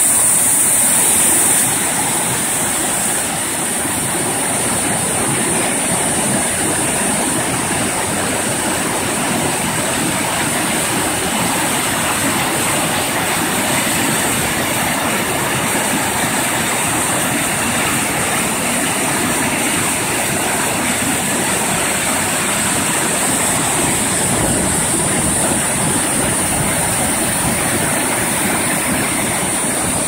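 Waterfall running at full spring snowmelt flow: a loud, steady rush of churning whitewater.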